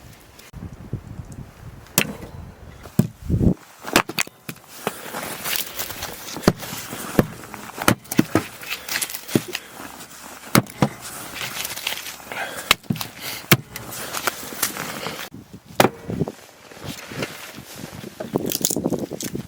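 An irregular series of sharp knocks and cracks, about one or two a second, with rough scraping between them, typical of hard objects such as wood being struck or handled.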